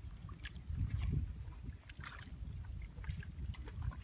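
Hands groping in shallow muddy water, with small scattered splashes over a steady low rumble of wind on the microphone; the rumble swells about a second in.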